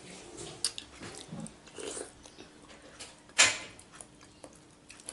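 Close-up eating sounds: chewing, smacking and small mouth noises with scattered light clicks, and one louder sharp crunch or clack about three and a half seconds in.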